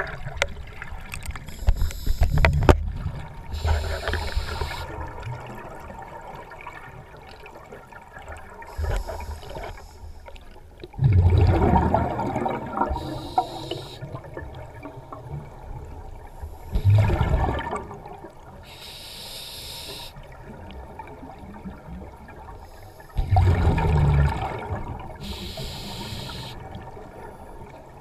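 Scuba regulator breathing underwater: several exhalations come out as loud bursts of bubbles, each followed a second or two later by the hiss of an inhalation through the demand valve, about every six seconds.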